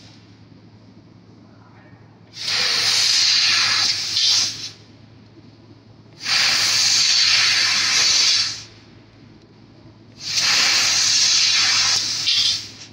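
Handheld fiber laser cutting head hissing as it cuts into a metal bar, three times for about two seconds each with short pauses between. A low steady hum runs underneath.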